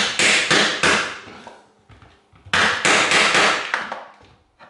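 Hammer blows on R2-D2's metal dome to knock out a dent. Two quick runs of about four or five strikes come a second or so apart, and the metal rings briefly after each blow.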